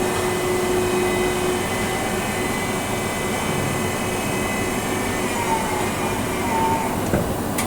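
Tornos Deco 13 Swiss-type CNC lathe running: a steady wash of machining noise with several spindle whines, some dropping in pitch about five seconds in, and a sharp click near the end.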